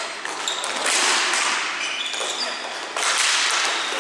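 Ball hockey play on a court: sticks clacking against the ball and each other, and short high squeaks.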